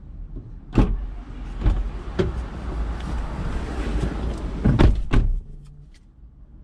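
A car door clicks open, outside street noise comes in while it stands open with a few small knocks, and the door shuts with a heavy thump near the end.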